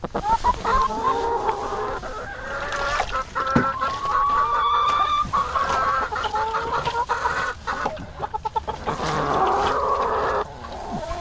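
A flock of hens clucking and calling over one another, with one longer drawn-out call about four seconds in.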